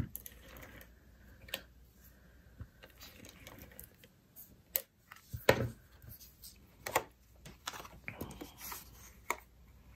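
Stampin' Seal tape runner laying adhesive on cardstock, with cardstock handled and pressed on the table: an irregular string of short clicks and taps, the loudest a dull knock about halfway.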